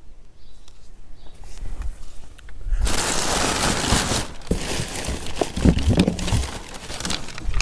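Packaging rustling and crinkling as items are handled and unwrapped, in two stretches with small clicks and knocks, the first starting about three seconds in.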